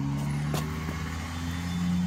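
A motor vehicle engine running in the background: a steady low hum whose pitch rises slightly near the end. A single light click about half a second in.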